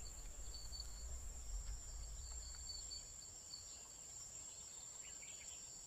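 AI-generated (Kling 2.6) savanna wildlife ambience, faint: a steady high insect-like buzz with a fainter pulsing chirp above it, over a low rumble.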